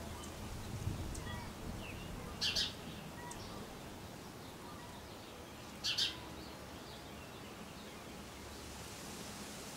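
High, short bird chirps: a loud doubled chirp about two and a half seconds in and another about six seconds in, with a few fainter chirps between, over a faint steady outdoor hiss.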